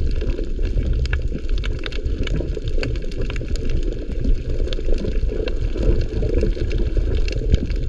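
Underwater ambience picked up by a submerged camera on a coral reef: a steady low rumble of water with many scattered sharp clicks.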